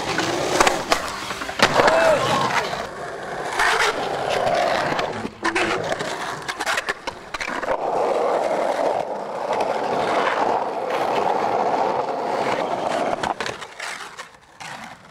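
Skateboard wheels rolling on pavement, broken by several sharp clacks of the board striking the ground, with the rolling fading away near the end.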